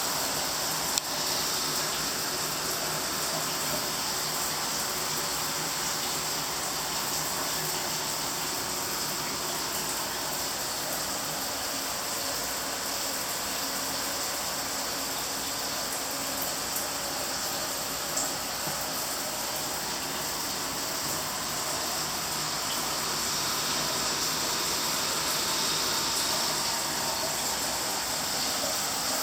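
Heavy rain pouring steadily: a dense, even hiss with a few faint ticks scattered through it.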